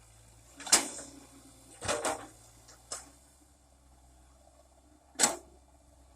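Four sharp clicks or knocks over a faint, steady background: one about a second in, a doubled one near two seconds, a lighter one at three seconds and a loud one near the end.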